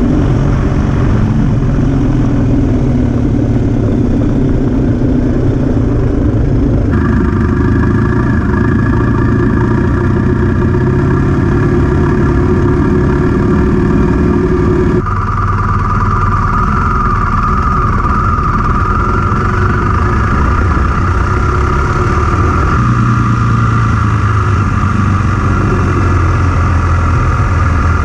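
BMW R 1250 GS Adventure's boxer-twin engine running steadily as the bike is ridden off-road, heard close up through a bike-mounted camera. The engine note changes abruptly three times.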